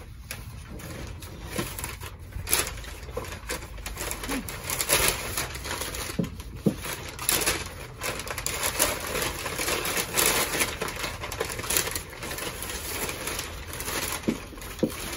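Sheets of packing paper rustling and crinkling in irregular bursts as porcelain saucers and plates are unwrapped by hand.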